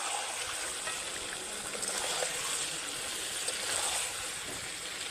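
A steady hissing noise with a few faint small crackles.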